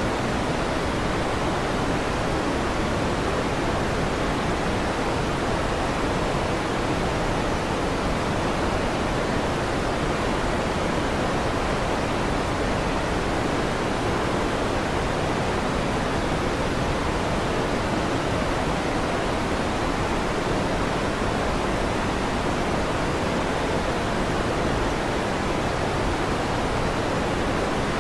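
Steady electric fan noise, an even whooshing hiss that does not change.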